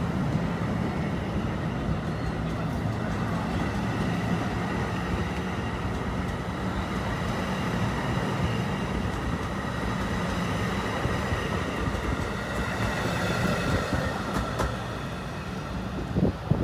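NJ Transit multilevel passenger coaches rolling past at close range: a steady rumble of steel wheels on rail with a faint high whine, easing off as the rear cab car goes by near the end. A brief knock sounds just before the end.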